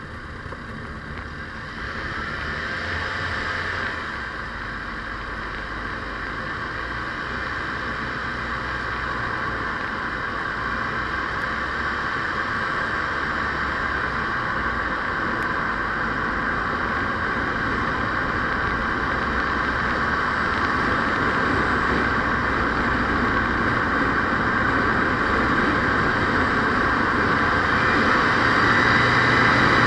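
Vehicle driving noise: steady engine and road noise that grows gradually louder.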